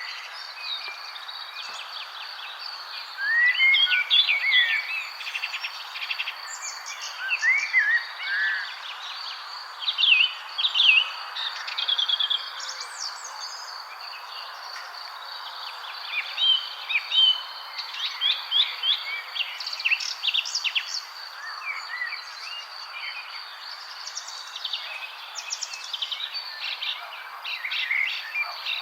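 Several birds chirping and singing in short, overlapping phrases of quick trills and whistles, some bursts louder than others, over a steady high-pitched drone and a constant background hiss.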